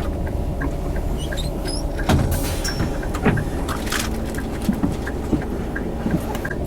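Tour coach's engine rumbling, heard from inside the cabin, with a steady ticking a little over twice a second. A few knocks and rattles sound about two and three seconds in.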